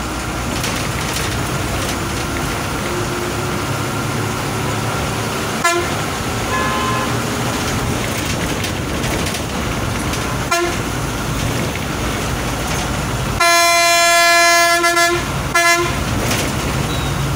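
A vehicle horn, heard from inside a moving bus over its steady engine and road hum, gives two short toots about 6 and 10 seconds in. Near the end comes one long blast of about two seconds, followed by another short toot.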